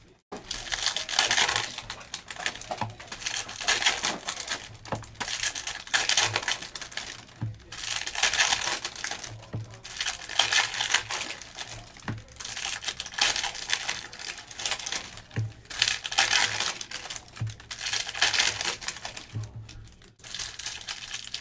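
Plastic-foil trading card pack wrappers crinkling as the packs are handled and opened, in repeated bouts.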